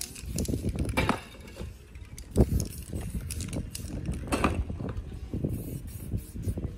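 Aerosol spray-paint cans being handled and worked on a painting: a few short knocks and hisses, the loudest a sharp knock about two and a half seconds in, over a low steady rumble.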